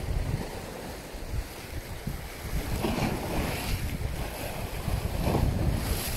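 Wind buffeting the microphone with an irregular low rumble, over the wash of choppy sea waves, which swell up briefly a couple of times.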